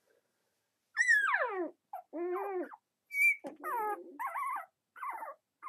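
Shiba Inu puppy trying to howl: starting about a second in, a run of short, high, wavering howls and whines, several of them sliding steeply down in pitch.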